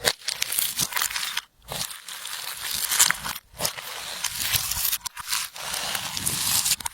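Clear slime being squeezed and kneaded by hand: dense, sticky crackling and popping clicks, with a few brief breaks.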